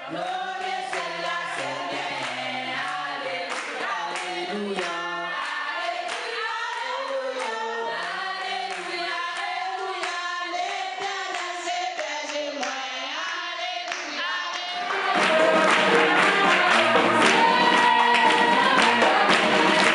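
A group of voices singing together, a choir with no instruments heard. About 15 seconds in, a louder, fuller stretch of music with quick percussive tapping, like a tambourine, comes in.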